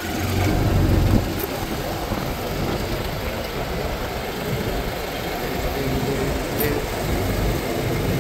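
Golf cart driving along a paved cart path. A steady low hum sounds for about the first second, then an even rushing ride noise.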